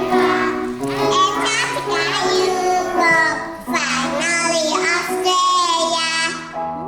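Children singing with musical accompaniment, the singing breaking off shortly before the end.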